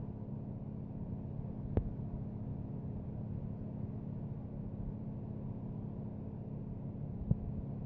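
A steady low hum with a faint hiss, broken by two short clicks, one about two seconds in and one near the end.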